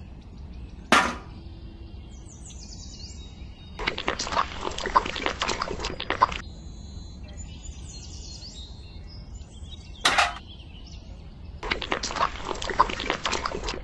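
Birds chirping in the background. A sharp knock comes about a second in and another about ten seconds in, and two stretches of dense, crackly noise last a few seconds each, the second running to the end.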